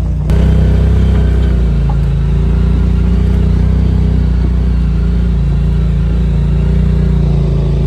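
Side-by-side UTV engine running at a steady, loud pitch while the machine drives along the trail.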